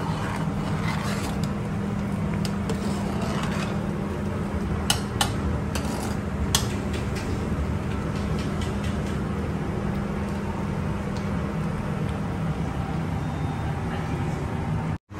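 Steady low roar of a commercial kitchen's gas range and extraction, with a constant hum, broken by a few light clicks about five and six and a half seconds in.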